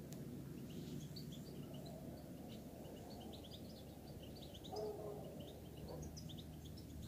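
Small birds chirping, many short high twittering calls scattered throughout, faint over a steady low outdoor rumble. A brief louder, lower sound stands out about five seconds in.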